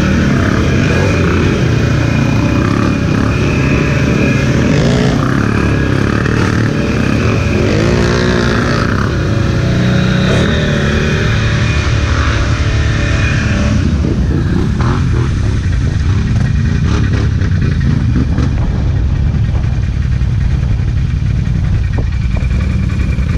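ATV engines running as the quads ride through mud, one revving with a rise and fall in pitch about eight seconds in. The higher part of the sound drops away about fourteen seconds in.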